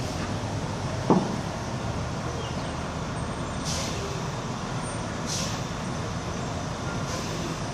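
Semi truck's diesel engine running with a steady low rumble. A brief sharp sound comes about a second in, then two short air hisses from the truck's air brake system at about four and five and a half seconds in.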